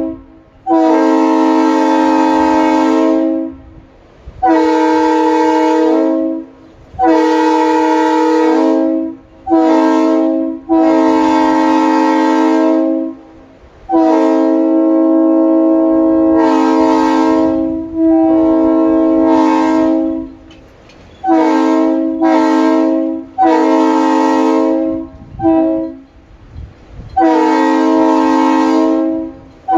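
Locomotive air chime horns sounded in a long series of blasts, some held for two or three seconds and others short toots, each a steady chord of several notes.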